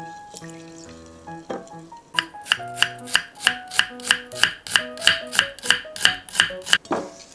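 Chef's knife slicing an onion thinly on a wooden cutting board: a quick, even run of knife strikes on the board, about four a second, starting about two seconds in and stopping shortly before the end, over background music.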